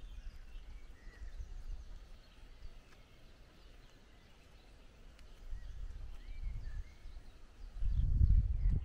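Outdoor rural ambience: low, uneven gusts of wind buffeting the microphone, strongest near the end, with faint bird chirps.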